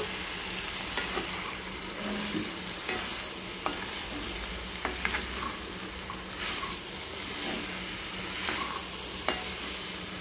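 Potato and capsicum pieces sizzling in oil in a kadai as a wooden spatula stirs in the freshly added masala powders, with a steady hiss and scattered sharp scrapes and knocks of the spatula against the pan.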